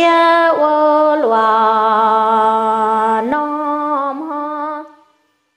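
A solo voice singing kwv txhiaj, Hmong sung poetry, in long held notes with a slight waver. The line steps down to a long low note, comes back up, and the last note fades away about five seconds in.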